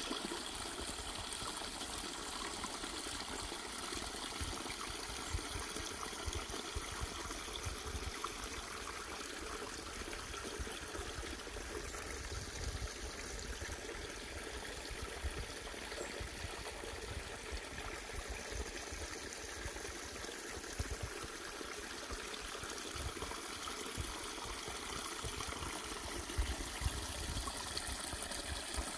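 Steady woodland ambience: an even rushing noise, with an unsteady low rumble underneath.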